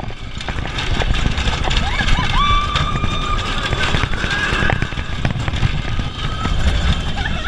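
Wind rushing over the microphone of a camera mounted on an inverted roller coaster in motion, with riders screaming. There is one long held scream starting about two seconds in, and shorter cries around it.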